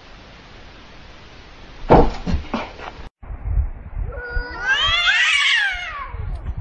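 A cat yowling at another cat in a standoff: one long, drawn-out caterwaul that rises in pitch and falls again, from about four to six seconds in. This is a threat call. Earlier, about two seconds in, there are a few short knocks.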